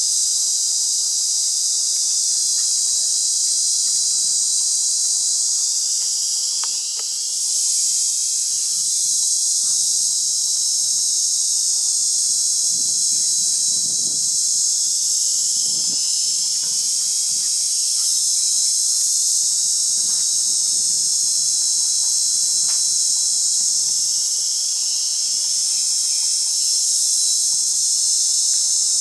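A steady, high-pitched chorus of insects that runs unbroken, with a few faint clicks.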